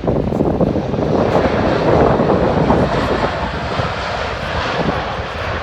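Engines of a fixed-wing aircraft on landing approach passing close by, a continuous broad rush that is loudest about two seconds in.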